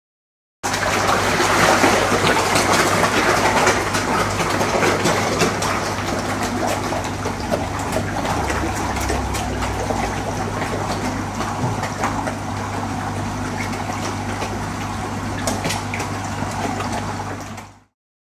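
Water churning and splashing as a crowd of koi jostle at the pond surface: a dense wash of water noise with many small splashes over a steady low hum. It starts abruptly and cuts off sharply near the end.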